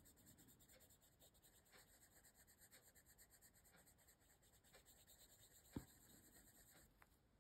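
Faint scratching of a coloured pencil shading paper in short, rapid, even strokes, with one sharper tap a little after halfway through.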